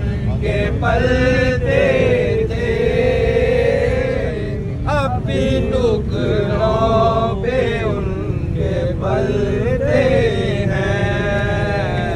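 A slow chanted vocal with long, wavering held notes and short breaks between phrases, over a steady low hum.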